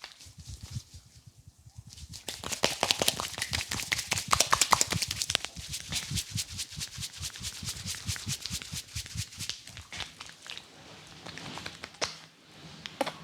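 Hands slapping and tapping in a fast rhythmic massage, many strikes a second, loudest a couple of seconds in and softer toward the end.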